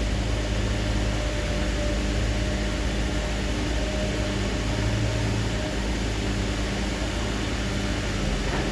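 Heavy diesel engine of earth-moving machinery running at a steady speed, a low even hum with a faint steady whine above it.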